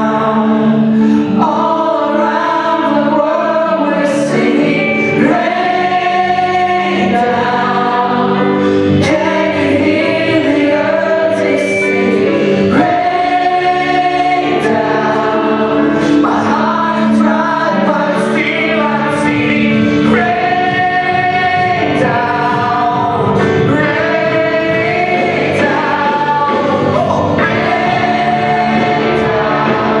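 Live worship band and choir performing a gospel-style song: many voices singing together in phrases with long held notes, over electric guitars, bass, keyboard and drums, at a steady level.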